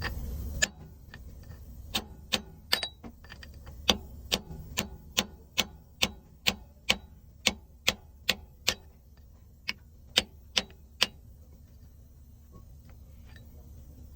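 A run of about twenty sharp, evenly spaced clicks, two or three a second, for about nine seconds during work on a differential. Just under a second in, a low hum cuts off.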